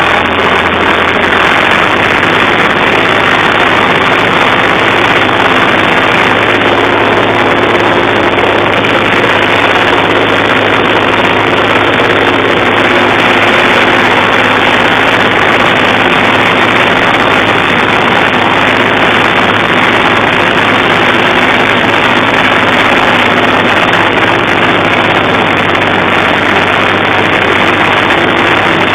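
Zetor 3511 tractor's three-cylinder diesel engine running steadily as the tractor drives along, heard loud and close from the driver's seat.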